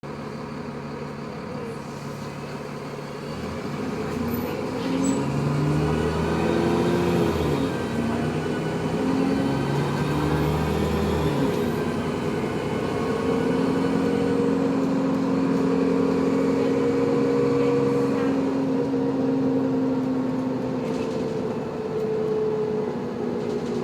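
Motor vehicle's drivetrain running with a weird whining noise: pitched tones that rise and fall in repeated arcs through the first half, then hold fairly steady.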